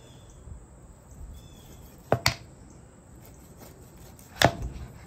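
A cleaver chopping down through a rack of smoked pork ribs onto a cutting board: a quick double chop about two seconds in, then a harder single chop near the end.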